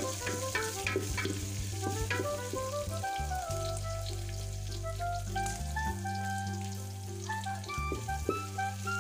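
Onion, garlic, ginger and green chillies sizzling in hot oil in a metal pot, stirred with a wooden spatula that knocks and scrapes against the pot. Background music with a melody and a bass line plays over it.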